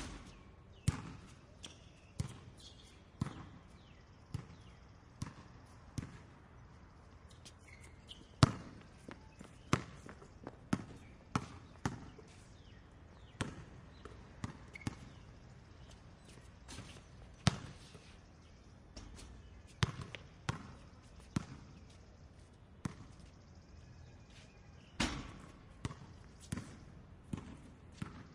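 Basketball bouncing on a hard floor, single sharp bounces at an uneven pace of roughly one a second, some much louder than others, over a light steady background hiss.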